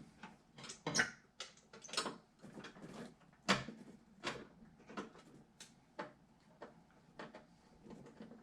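Irregular clicks and light knocks of hard computer parts and packaging being handled during a PC build, about one or two a second, the loudest about three and a half seconds in.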